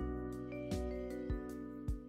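Calm instrumental hip-hop background music: held keyboard-like notes over a soft, steady beat.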